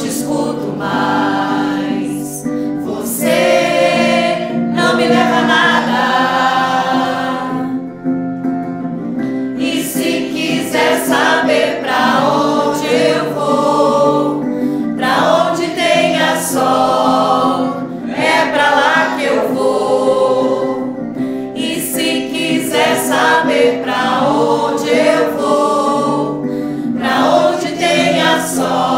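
Small mixed choir of men and women singing a song together, with held low notes sustained under the melody.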